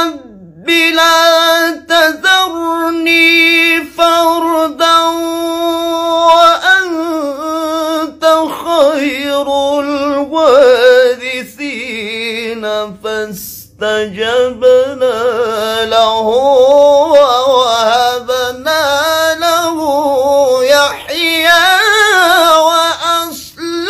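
A man's unaccompanied voice chanting in the melodic style of Quran recitation (tilawah). It holds one long steady note for about five seconds, then moves into wavering, ornamented phrases that climb and fall, with short breaks for breath between them.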